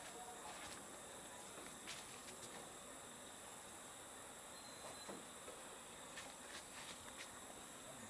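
Faint, steady, high-pitched chorus of insects, with a scattering of small soft clicks.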